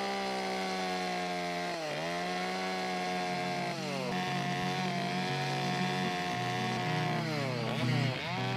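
Chainsaw running at high speed while carving wood. Its pitch sags and recovers three times, about two seconds in, near four seconds and again around seven to eight seconds.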